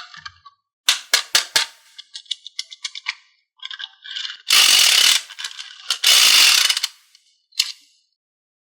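Slime being handled and mixed, starting with a quick run of sticky clicks and pops. Two longer, louder crackling squishes follow, at about four and a half and six seconds in, then a single pop near the end.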